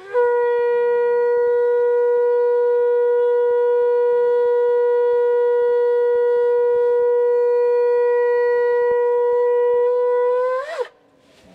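Conch shell (shankha) blown in one long steady note for about ten seconds. The pitch bends upward just before it stops.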